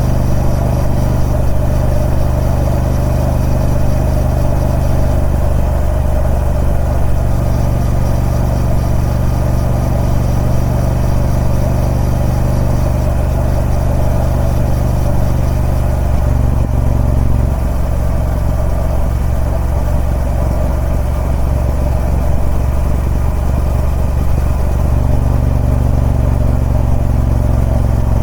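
Triumph Speed Twin 1200's parallel-twin engine running through its stock exhaust at a steady engine speed, its note shifting slightly about sixteen seconds in and again near the end.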